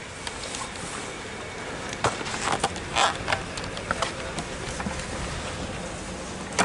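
Steady outdoor hiss at a snowy railway platform with a faint steady hum, broken about two to four seconds in by a cluster of close, sharp clicks and crackles of the camera being handled and moved.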